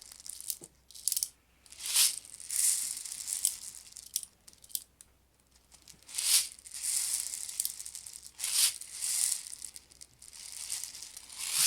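Plastic 0.12 g airsoft BBs rattling and clicking as they are loaded by hand into a spring airsoft shotgun's double-stack magazine, in a series of short bursts with pauses between.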